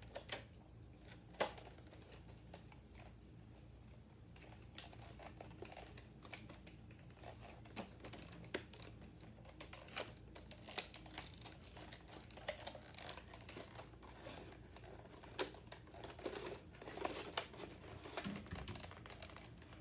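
Clear plastic packaging being handled and pried at by hand: irregular small clicks, taps and crinkles of the stiff plastic tray, busier in the second half.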